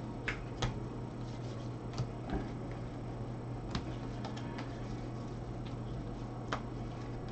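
Baseball trading cards being flipped through a stack by hands in nitrile gloves: a few sharp, light clicks and snaps of card edges at irregular intervals, over a steady low hum.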